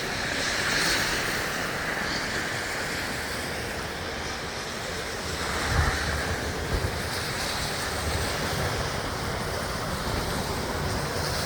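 Steady rushing blizzard wind, with low rumbling gusts hitting the microphone about six seconds in and again around eight seconds.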